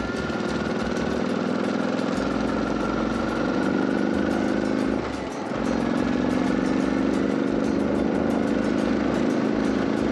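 Motorcycle engine pulling hard under acceleration, its pitch climbing steadily; about five seconds in it drops away for a moment at an upshift, then climbs again in the next gear, over wind noise.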